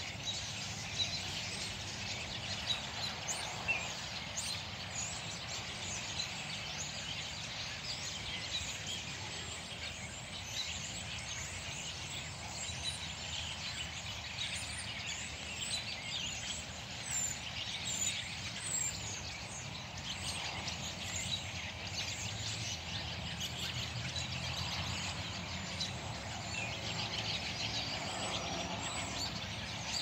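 A large flock of birds calling from bare trees: many short chirps and trills overlapping without a break, over a low steady rumble.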